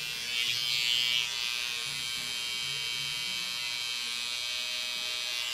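Cordless T-blade hair trimmer buzzing steadily as it edges up a hairline, cutting the short baby hairs at the temple; a little louder for about a second near the start.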